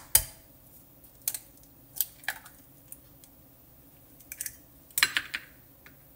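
Egg tapped on the rim of a glass bowl and cracked open by hand: a scatter of short, sharp clicks and cracks of shell over several seconds, with a closer cluster about five seconds in as the shell halves go down into a small ceramic dish.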